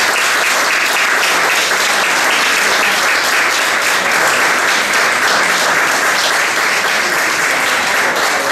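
Audience and musicians applauding: steady, dense clapping.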